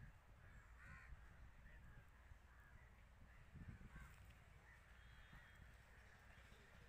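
Faint crows cawing several times in short calls over a low, steady rumble.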